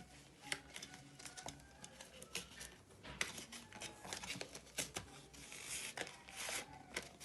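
Hands handling paper and plastic: an irregular run of small clicks, taps and crinkling rustles, as of cards and packaging being moved about and unwrapped.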